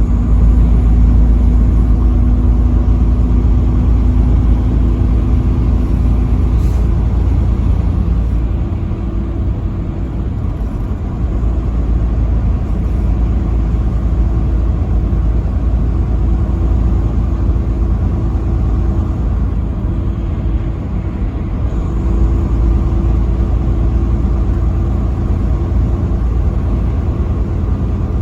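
Steady low rumble of a road vehicle driving along a highway: engine and tyre noise with faint steady hum tones, easing slightly a couple of times.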